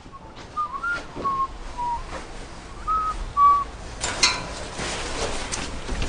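A short whistled tune of six high, clear notes in two groups, the first group slightly bending in pitch, followed about four seconds in by a rustling noise.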